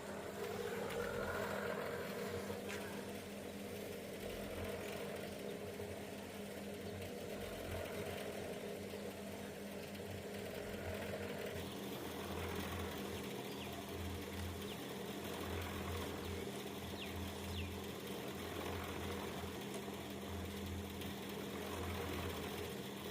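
A motor or engine running steadily, with a steady hum. About twelve seconds in its sound changes and a pulsing low throb becomes stronger.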